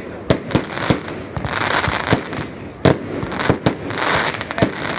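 Evolution Fireworks 'Snowstorm' consumer firework going off, with sharp reports at an uneven pace, some in quick pairs, over a steady hiss.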